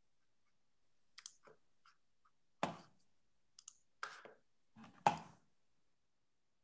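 A handful of sharp computer mouse clicks, unevenly spaced, the two loudest about two and a half and five seconds in, as PowerPoint is operated.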